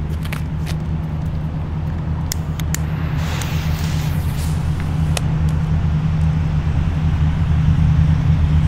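A motor vehicle engine idling close by, a steady low drone that slowly grows louder. Over it come a few sharp clicks and, about three seconds in, a brief hiss as a firecracker fuse burns; the firecracker does not go off.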